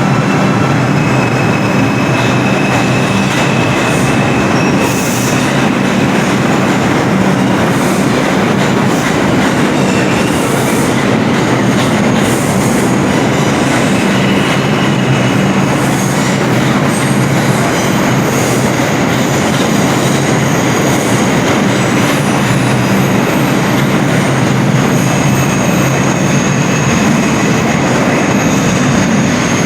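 New York City Subway R142 train leaving a station: a loud, steady rumble of wheels on the rails, with thin high squealing tones that come and go.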